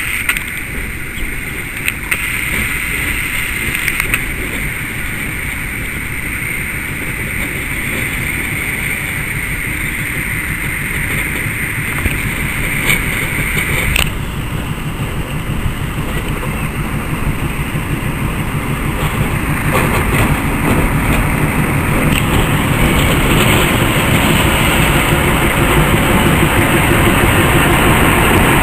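Diesel shunting locomotive running at low speed with a steady engine drone that grows louder as it approaches and draws alongside, loudest near the end.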